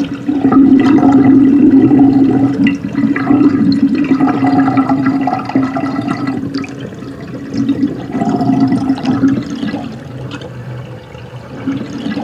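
Bathwater sloshing and swirling in a bathtub, a continuous rushing, gurgling wash that grows gradually quieter toward the end.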